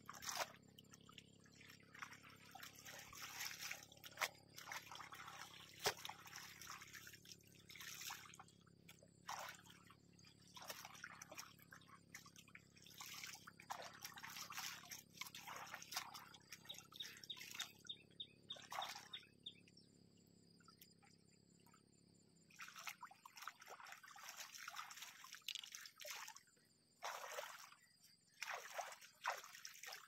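Water splashing, trickling and pouring in irregular bursts as a person bathes in shallow water, scooping with a bucket and dipping a cloth.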